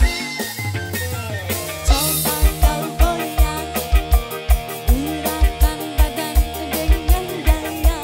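Dangdut music with a steady drum beat under a bending melodic line.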